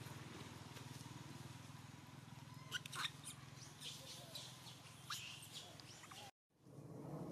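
Faint, short high-pitched animal squeaks and chirps, clustered about three seconds in and scattered over the next few seconds, over a low steady motor hum that fades away in the first couple of seconds. The sound cuts out abruptly near the end.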